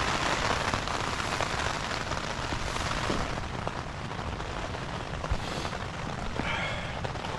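Rain pattering on the tent's fabric, heard from inside the tent as a steady hiss, a little louder in the first few seconds.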